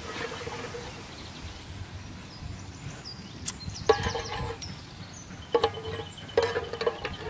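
Metal spoon knocking and scraping against the inside of a metal cooking pot. Several sharp clanks ring on briefly: one a little past halfway, then two more a second or two later.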